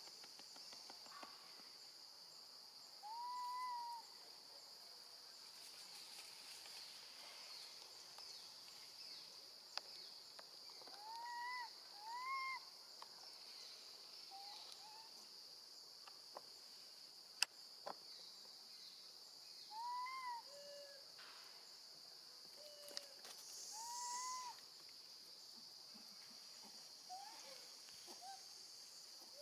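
Baby monkey giving about five short, clear calls, each rising then falling in pitch, two of them in quick succession near the middle: it is calling for its mother after being left alone. A steady high buzz of crickets runs underneath.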